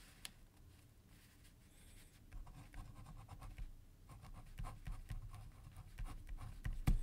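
Pen writing by hand: a quiet run of short scratchy strokes starting about two seconds in.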